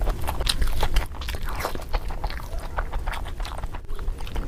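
Close-up eating sounds of a mukbang: biting into and chewing sunny-side-up fried eggs with crisp browned edges, a run of irregular short crunches and clicks over a steady low hum.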